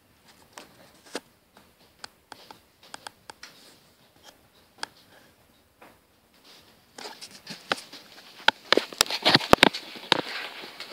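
Scratchy rustling and sharp clicks of the phone rubbing against a white long-haired dog's fur, right at the microphone: sparse at first, then a dense run of loud clicks and scraping from about seven seconds in.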